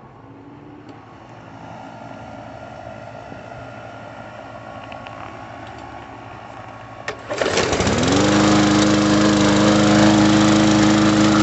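Walk-behind lawn mower's small engine starting about seven seconds in: it catches at once, its pitch rises briefly and it settles into a steady run. It keeps running because the broken control-bar cable's spring has been wedged in place.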